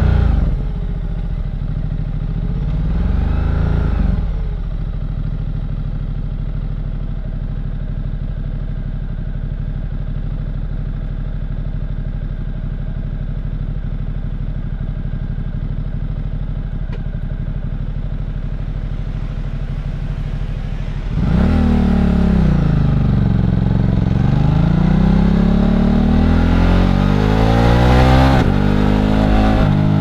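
Ducati Multistrada 1260 S's Testastretta L-twin engine running on a ride. The revs rise briefly near the start, then the engine holds a steady lower note for about sixteen seconds. About two-thirds of the way in it gets louder as the throttle opens, with the revs dipping and climbing again several times.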